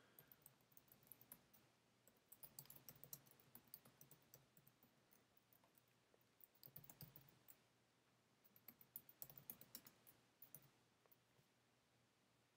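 Faint computer keyboard typing: three short runs of key clicks with quiet pauses between them.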